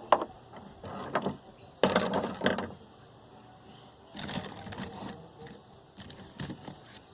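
Paper and colouring supplies being handled: a couple of sharp clicks near the start, then short bouts of rustling and scraping about two seconds in and again around four to five seconds in.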